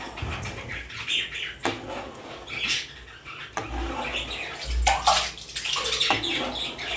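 Milk sloshing as a spoon stirs it in a metal pan, with a few sharp knocks.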